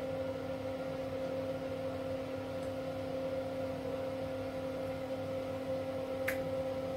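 Steady mechanical hum made of several constant tones, from a machine running in the room. A single light click comes about six seconds in.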